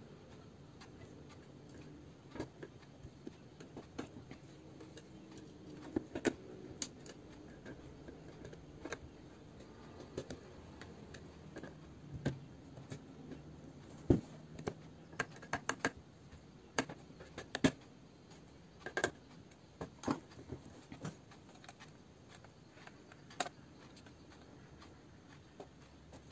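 Irregular small clicks and taps of a screwdriver and fingers on a laptop motherboard and its metal heatsink-and-fan cooler as the cooler is unscrewed and lifted off. A few of the clicks are sharper and louder than the rest.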